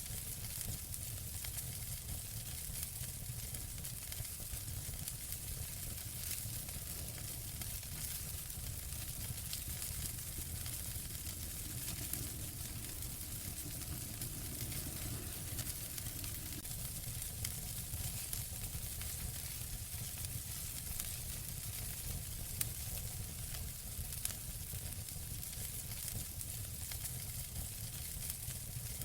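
Wood fire burning in a fireplace: a steady low rumble and hiss with many small crackles and pops throughout.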